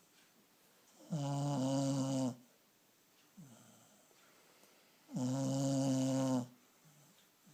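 Staffordshire bull terrier snoring while asleep: two loud snores about four seconds apart, each a little over a second long, with faint breathing between them.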